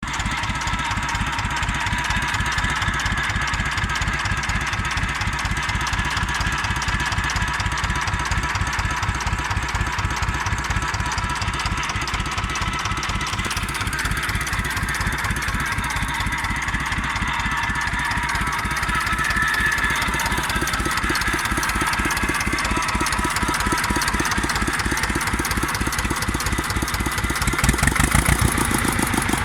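Ursus C330 tractor's two-cylinder diesel engine idling with an even, steady knock, freshly rebuilt and in its first running hours after overhaul. Near the end the engine speed picks up and it gets louder.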